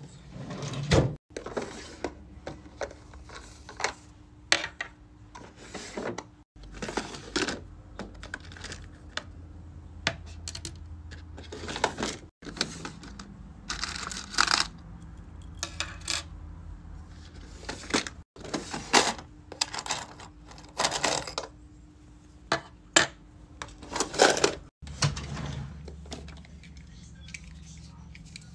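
Small metal and plastic keychain pieces clinking, rattling and clicking as they are picked out of a tray and set down on a desk: a string of separate sharp knocks and jingles, broken by five brief silent dropouts.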